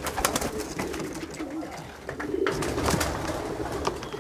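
Racing pigeons cooing softly in a wooden loft, with a few sharp clicks and taps in between.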